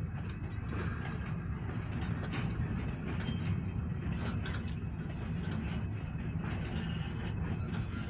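Covered grain hopper cars of a freight train rolling past: a steady low rumble of steel wheels on the rails, with scattered clicks and knocks from the wheels and couplings.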